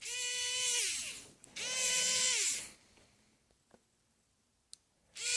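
Battery-powered electric screwdriver running in short bursts of about a second each, a steady motor whine that sags in pitch as each burst stops: twice near the start, and once more near the end.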